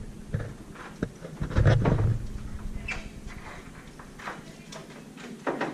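A dorm room door being shut and locked: a cluster of heavy thumps about one and a half seconds in, with scattered clicks and knocks around it.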